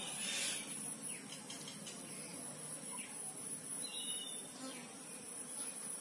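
Steady high-pitched insect drone, with a couple of short bird chirps about four seconds in. A brief squish of hands mixing spiced mango pieces in a steel bowl comes just after the start.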